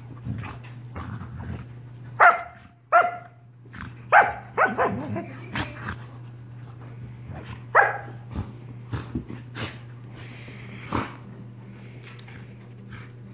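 Young dog barking in play into another dog's face: sharp barks about 2 and 3 seconds in, a quick cluster around 4 to 5 seconds and one more near 8 seconds, amid the scuffling of the two dogs wrestling. A steady low hum runs underneath.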